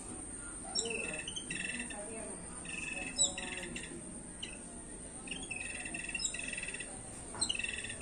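Small songbirds calling around a fledgling: a string of short, repeated calls, each a quick high downward note running into a brief buzzy tone, about seven in all.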